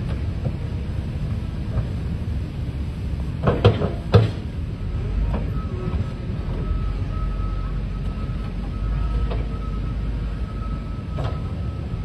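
Volvo wheel loader running as it works storm debris of logs and mud, its engine giving a steady low rumble. Two loud clattering knocks come close together a few seconds in. Later the engine rumble strengthens and a steady high whine joins it as the loaded bucket is raised.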